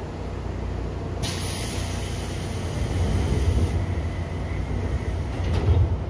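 Seibu 2000 series electric train running, its wheels rumbling steadily on the rails. A sudden hiss of released air starts about a second in and fades away over the next few seconds. A single knock comes near the end.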